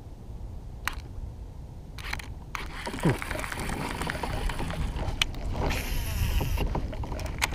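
Baitcasting reel being cranked: a mechanical whir for about four seconds from about three seconds in, with sharp clicks and knocks of handling before and after.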